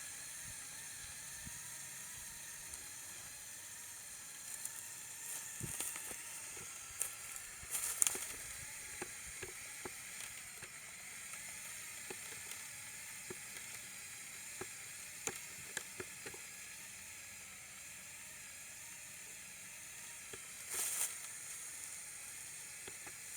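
Remote-controlled LEGO Technic 4x4 model's motors and plastic gearing whirring steadily in second gear as it crawls over rough ground, with scattered clicks and crackles from its tyres on twigs and dirt, the loudest about eight seconds in and near the end.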